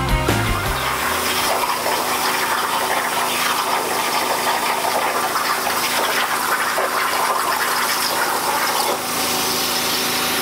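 Unimig Razor Cut 45 plasma cutter's torch cutting 3 mm mild steel plate on a CNC table: a steady hiss with a faint low hum under it.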